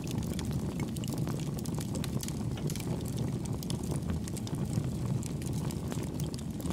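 Crackling fire sound effect for an ember logo animation: a steady low rumble with many small sharp pops and crackles scattered through it.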